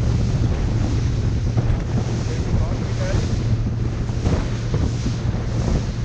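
Boat engine running steadily with a constant low hum, wind buffeting the microphone, and sea waves washing.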